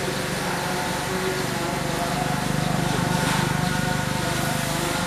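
A steady mechanical hum of a running motor or engine, a little louder from about two seconds in.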